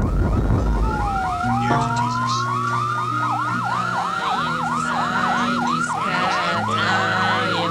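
Electronic music with a siren-like tone sweeping rapidly up and down about five times a second, like a yelp siren. It plays over low sustained synthesizer notes that step to new pitches every couple of seconds.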